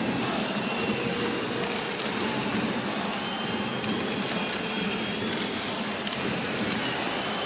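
Ice hockey arena sound during play: steady crowd noise, with skates scraping on the ice and a few sharp clacks of sticks on the puck.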